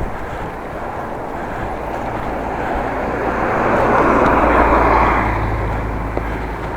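Strong wind rushing on the microphone of a moving bicycle, with a low steady rumble. The rush swells to its loudest about four to five seconds in, then eases.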